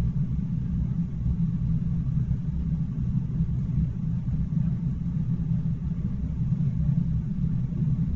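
Steady low background rumble with nothing else standing out.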